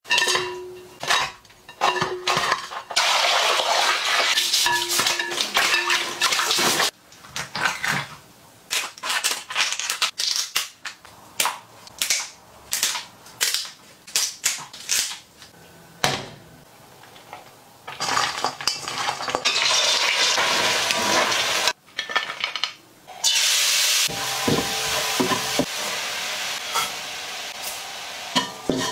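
Kitchen sounds of preparing lobster: stretches of food sizzling and frying in a pan, and in the middle a long run of sharp clicks and cracks as kitchen scissors cut through the lobster shell.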